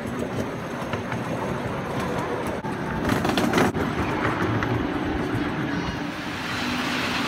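Miniature railway passenger train running along the track, heard from a ride-on carriage: a steady rumble of wheels with frequent clicks over the rail joints.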